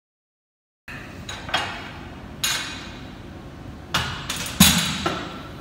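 Silence for about the first second, then a loaded barbell and its iron plates clank against the metal bench-press rack: four sharp metal clanks, each ringing briefly, with the loudest near the end.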